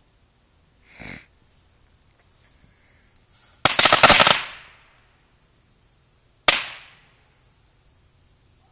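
Black Cat firecrackers going off in a fire pit: a rapid string of sharp cracks about three and a half seconds in, then one last single bang a couple of seconds later.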